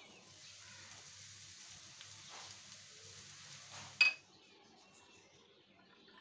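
A faint steady hiss, then about four seconds in a single sharp clink of kitchenware against the frying pan that rings briefly.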